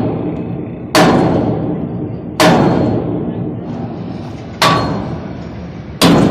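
A series of heavy, booming impacts at uneven intervals of about one and a half to two seconds, each fading slowly.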